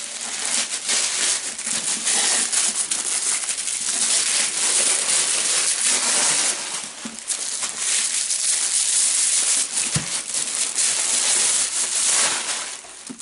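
Paper wrapping crinkling and crackling continuously as it is pulled and torn off a hardback book, with a single knock about ten seconds in.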